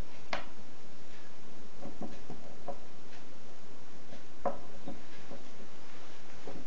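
A few light clicks and clinks over a steady background hiss as small metal reel drag washers are handled in a frosted glass cup of cleaning spirit. There is one sharp tick about a third of a second in, a few soft ticks around two seconds in, and the loudest clink about four and a half seconds in.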